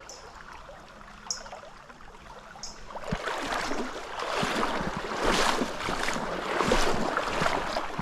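River water splashing and rippling around a wader in a tailwater stream. It gets louder from about three seconds in.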